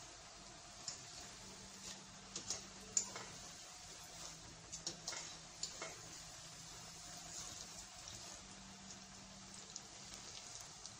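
Coated groundnuts deep-frying in a pot of hot oil: a steady, rain-like crackling hiss, with a cluster of sharp pops and clicks in the first half as a metal skimmer stirs them.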